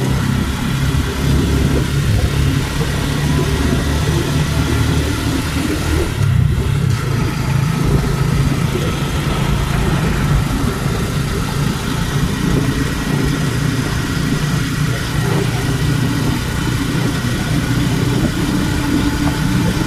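Engine and road noise of a moving motor vehicle heard from inside it, a steady low rumble with no clear change in speed.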